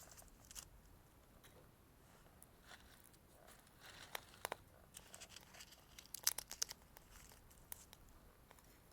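Wood fire crackling in a small wood-gas camp stove: scattered sharp snaps and pops, with a cluster about four seconds in and a louder burst of them around six seconds.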